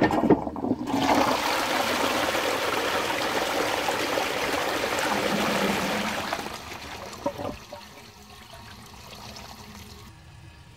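Toilet flush through a 1946 Royal Doulton "Ribble" ceramic P-trap WC pan. It opens with a clunk, then water gushes through the bowl for about six seconds and dies away to a trickle.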